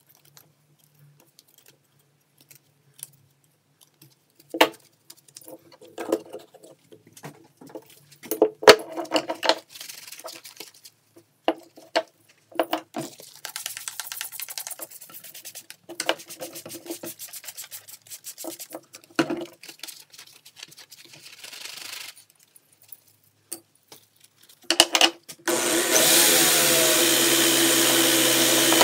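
Rusty steel chain links clinking and rattling as they are handled on a workbench, with stretches of soft hissing between. About 26 s in, an electric drill fitted with a brass wire wheel brush starts and runs steadily and loudly.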